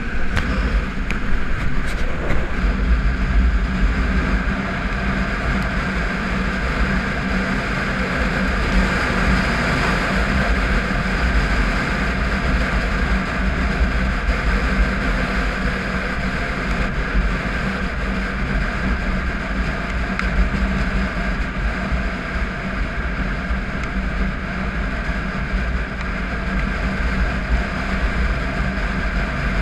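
Triumph Tiger 955i motorcycle's inline-triple engine running steadily at cruising speed, with wind rumbling heavily on the on-bike camera's microphone.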